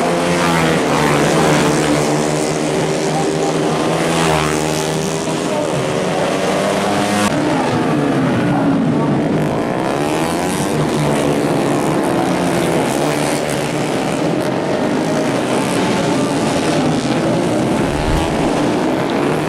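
Several race-tuned four-stroke 150 cc underbone motorcycles revving hard as they pass one after another, their engine notes rising and falling and overlapping. The sound cuts abruptly about 7 seconds in to another group of bikes.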